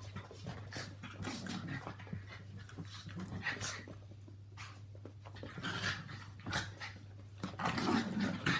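Small dogs, Yorkshire terriers and a Maltese, play-fighting: bursts of play growling mixed with scuffling on carpet, getting loudest near the end. A steady low hum runs underneath.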